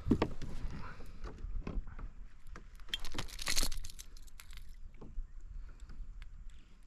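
Scattered metallic clicks and knocks of pliers and a surface lure's treble hooks against a fish-lip gripper as a fish is unhooked by hand, with a short burst of hiss about three and a half seconds in.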